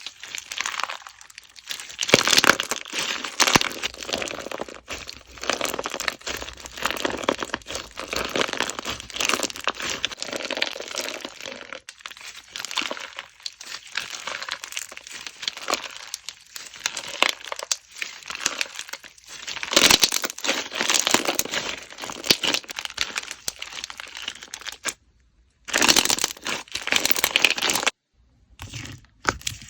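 Slime being squeezed and worked by hand close to the microphone, making dense crackling and crinkling clicks that stop abruptly twice near the end.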